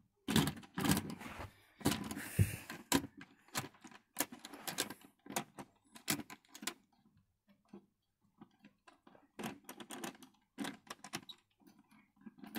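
00 gauge model train running on its track: irregular clicking and clattering of the wheels over rail joints and points, in clusters with a quieter stretch about halfway through.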